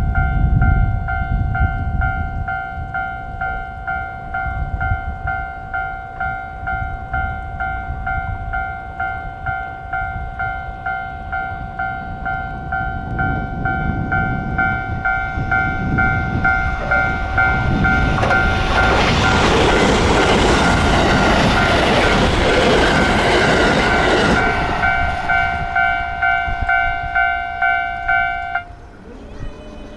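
Japanese railway level-crossing alarm ringing its electronic bell over and over while a train passes over the crossing. The train's noise swells to its loudest about two-thirds of the way through and then fades. The crossing bell cuts off suddenly near the end.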